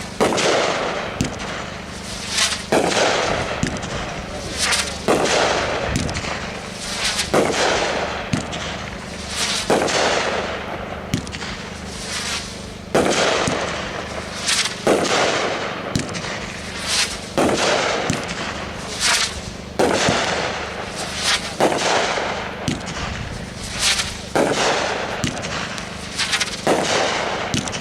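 Red Rhino Liberty Bell firework cake firing its shots one after another, a sharp bang about every two seconds, each trailing off over about a second.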